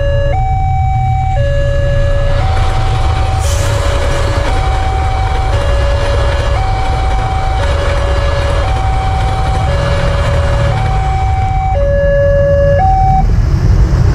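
Railway level-crossing warning siren sounding an alternating two-tone hi-lo signal, each tone held about a second, over the rumble of a passing passenger train. The siren cuts off about 13 seconds in as the train clears.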